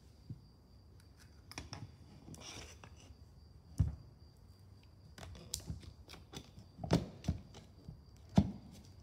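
Metal parts clicking and knocking as the steering arm of a Cessna 150 nose gear oleo strut is fitted by hand over the strut barrel: scattered light clicks with a few sharper knocks, the loudest about four, seven and eight and a half seconds in.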